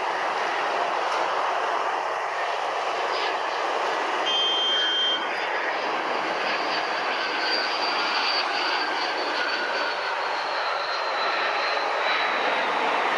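Airbus A380's four jet engines running as it rolls along the runway: a steady rushing roar with a high whine that slowly falls in pitch. A brief high tone sounds about four seconds in.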